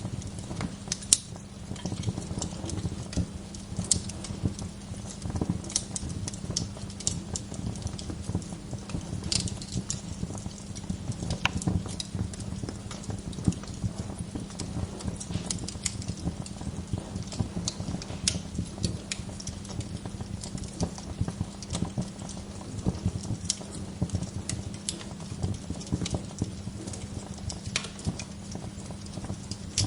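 Wood fire in a fireplace crackling and popping, with many small irregular pops and snaps over a low, steady hum.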